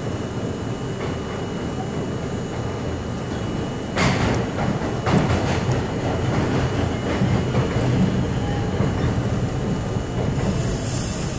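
New York City subway C train running through a tunnel: a steady rumble of wheels on rails, with a sudden loud clatter about four seconds in followed by more rattling clacks. A high hiss joins near the end.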